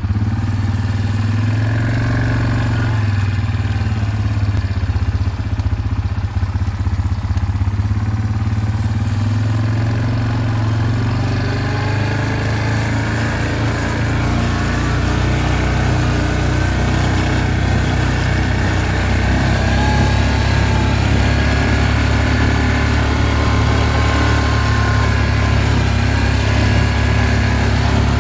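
A small vehicle engine running steadily, its pitch rising and falling slightly.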